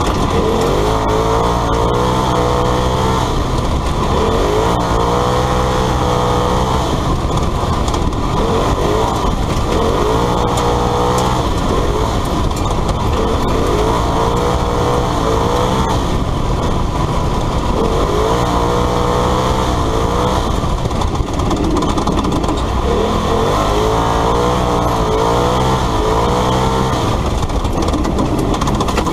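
Polaris RZR side-by-side rally car's engine heard from inside the open cabin, its pitch repeatedly climbing and falling back as the driver accelerates and lifts between corners, over a constant rush of tyres on the dirt road.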